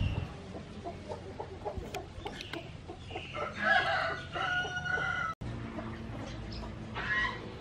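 A rooster crowing once, a call of about two seconds starting roughly three seconds in, with a shorter call near the end.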